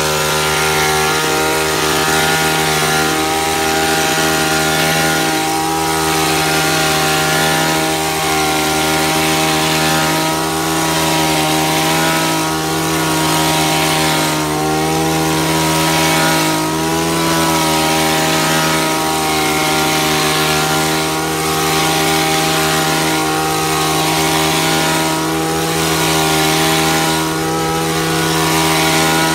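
Gasoline dual-blade hedge trimmer's small two-stroke engine running at high speed while its blades cut through tea bushes. The engine holds steady, with a slight waver in level every couple of seconds as the trimmer is swept through the foliage.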